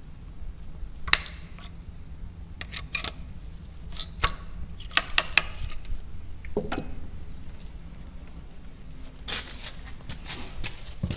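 Handling of the loading gear for a black powder muzzle-loading pistol: irregular small metallic clicks, taps and knocks. A sharp one comes about a second in, a run of them around the middle, and a cluster near the end.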